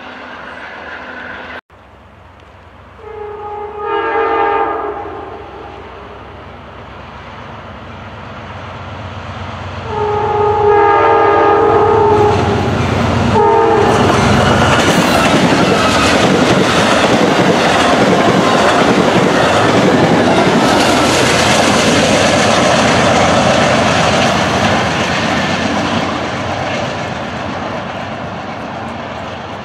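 Amtrak Downeaster's GE Genesis diesel locomotive sounding its horn in two blasts, the second a little longer, then the train passing at speed with loud wheel and rail noise that fades as it moves away.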